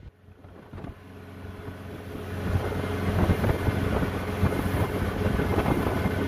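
Motorboat engine running steadily under wind noise, with irregular thumps from the boat riding the chop; the sound fades in over the first few seconds.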